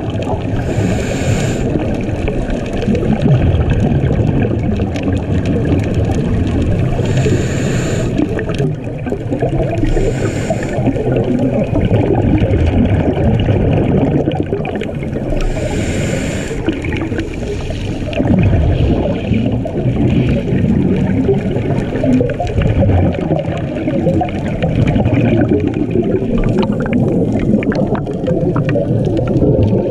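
Muffled underwater rushing and rumbling of water, as heard by a camera in an underwater housing. Several bursts of bubbling about a second long stand out, mostly in the first half.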